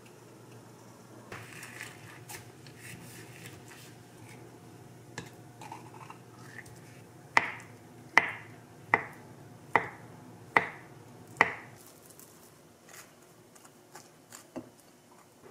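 Kitchen knife slicing through an avocado and knocking down on a wooden cutting board, six sharp chops in a row, about one every 0.8 seconds. A few light knife clicks and scrapes follow near the end as cream cheese is spread on toast on a ceramic plate.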